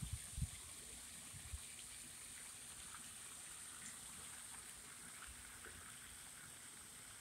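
Faint outdoor ambience: a steady high hiss, with a few short low thumps on the microphone in the first second and a half.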